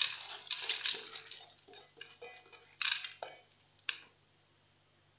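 Split dried fava beans pouring from a metal bowl into an empty aluminium pressure cooker, a dense rattle of beans hitting the metal. About two seconds in it thins to scattered clicks, with a last short clatter near three seconds and a single tick near four.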